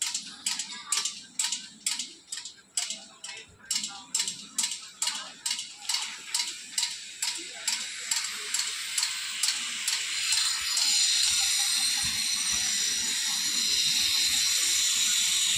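An insect calling: sharp rasping pulses, about three a second, that quicken and run together about ten seconds in into a continuous high buzz.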